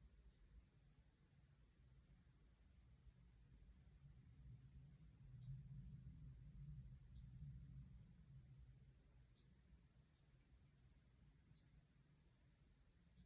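Faint, steady, high-pitched chorus of crickets, with a low rumble swelling up and fading away in the middle.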